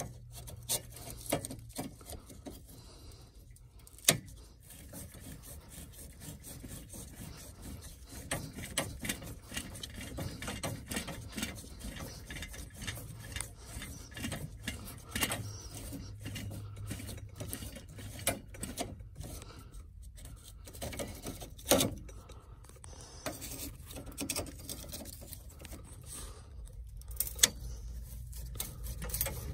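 Mini tubing cutter turned by hand around a corroded copper water pipe, its wheel scoring through the copper with a dense run of small clicks and scraping. Two sharper knocks stand out, one about four seconds in and one about two-thirds of the way through.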